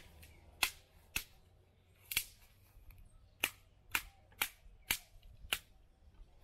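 Dry twigs snapping for the wood fire: about eight sharp, separate cracks at uneven intervals, the loudest right at the start.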